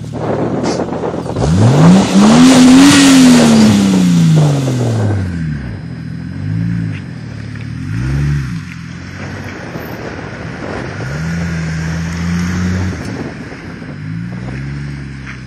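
1994 Toyota Supra twin-turbo's inline-six through an Apexi N1 exhaust with the resonator removed, revving up and back down about two seconds in under a loud rushing noise. Then come a couple of short revs, a steady pull and another rev near the end as the car drives past and away.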